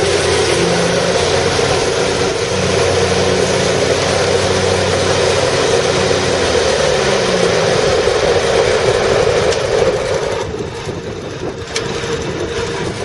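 Kohler Command 25 hp V-twin engine on an Exmark Lazer Z zero-turn mower running steadily, its engine note shifting about six seconds in; the sound gets quieter about ten seconds in.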